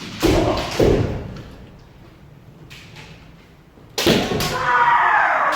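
Kendo practice in a wooden-floored hall: two heavy thuds about half a second apart, a quiet stretch, then a loud impact about four seconds in followed by a held, pitch-bending shout (kiai).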